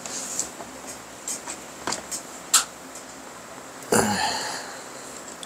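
Hands working a red rim saver onto a Onewheel wheel: a few small sharp clicks and taps, then a louder, longer rub about four seconds in that fades away.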